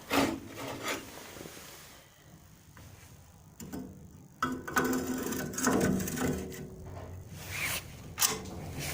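Sheet-metal parts of a home-made waste-oil stove being handled: a knock at the start, then rough metal-on-metal scraping a few seconds in, and another sharp knock near the end, as the burner's damper is fitted in place.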